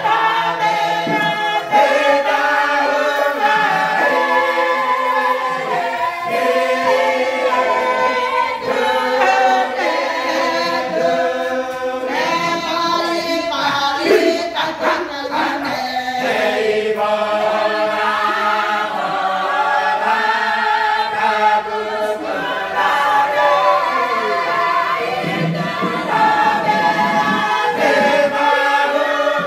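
A group of voices singing together unaccompanied, in several parts, with long held notes.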